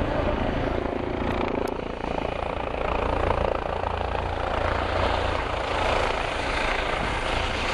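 A group of turbine helicopters (Eurocopter EC135s, AS355s and an EC120) flying past together, a steady mix of rotor and turbine noise with a low rumble.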